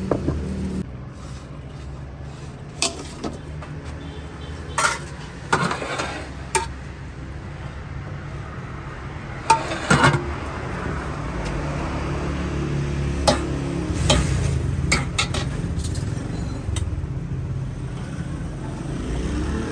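Metal utensils and dishes clinking and knocking a dozen or so times, over a steady low hum of road traffic.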